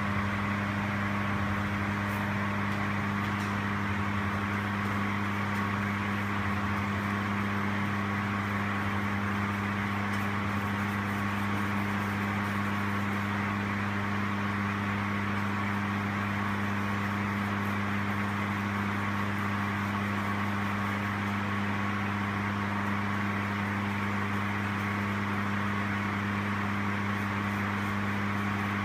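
Steady electrical or mechanical hum with a constant hiss over it, unchanging throughout.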